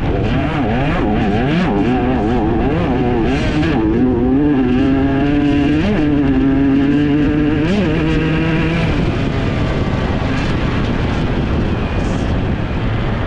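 Enduro motorcycle engine under race riding, revving up and down quickly, then held at steady high revs for several seconds with two short blips. After about nine seconds the steady note breaks up into a rougher sound.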